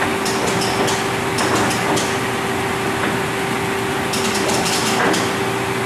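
Nardini 20 x 120 engine lathe humming steadily, with clusters of sharp clicks and rattles as its control-panel switches are worked, about half a second, one and a half seconds, and four seconds in.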